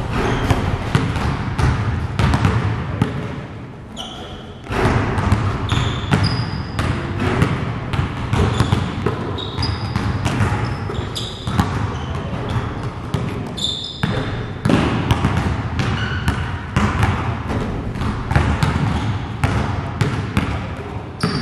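Basketballs bouncing repeatedly on a gym floor, with brief high squeaks now and then.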